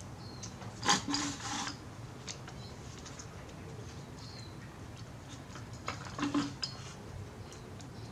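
Small weed eater carburetor parts clicking and clattering as they are handled and fitted onto the engine by hand, in two short bursts about a second in and about six seconds in, with scattered light ticks between.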